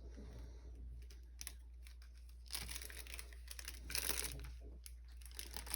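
Faint rustling and crinkling as strips of feather trim and their plastic packaging are handled, a little louder in the middle.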